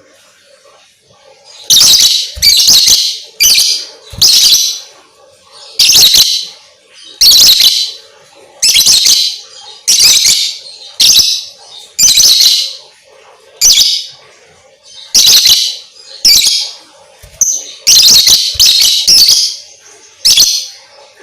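Lovebird calling in a long series of loud, shrill, high-pitched chirping bursts, roughly one a second, with brief pauses between them.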